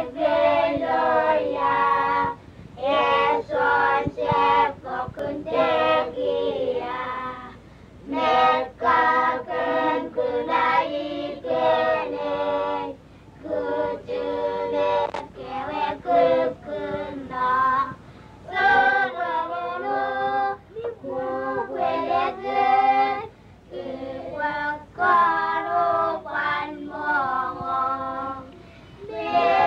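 A group of Kuttu Islanders, young and women's voices together, singing unaccompanied in chorus. The song comes in short phrases with brief breaks between them.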